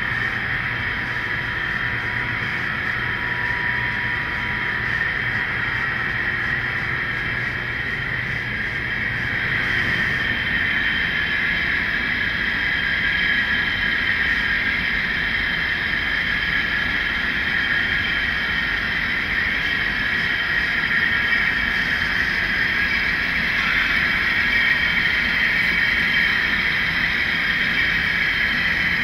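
Model train running along the track: a steady whir and hum from the model locomotives' motors and the wheels rolling on the rails. The sound turns a little brighter and louder about ten seconds in.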